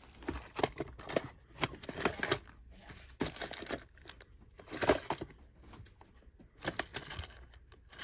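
Plastic-bagged and carded model railroad detail parts being rummaged through by hand in a plastic storage drawer: bags crinkling and packages clacking against each other and the drawer in uneven spells, loudest about five seconds in.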